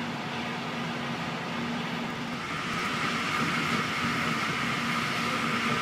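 Running noise of a block-braked Halberstädter compartment coach at speed, heard from inside: a steady rumble and hiss of wheels on rail. About halfway through it grows louder and a high-pitched ringing joins it.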